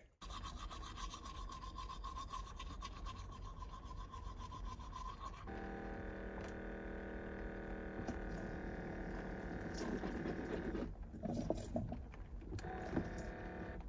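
Toothbrush scrubbing, then about five seconds in the van sink's small electric water pump starts, running with a steady whine as water flows for rinsing. It stops for a moment with a few knocks and starts again near the end, sounding different from usual.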